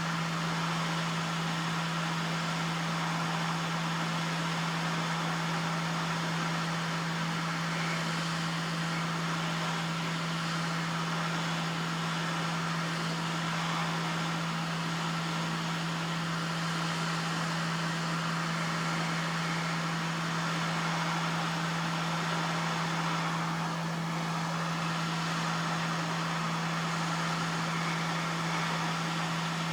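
A small electric fan blowing steadily, an even whoosh over a constant low hum, with no change throughout.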